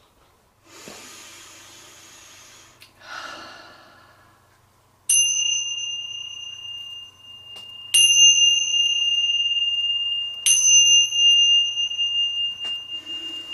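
Tingsha cymbals struck together three times, about five, eight and ten and a half seconds in, each strike ringing on in a clear high tone that fades slowly. Before the first strike there are two soft hissing sounds.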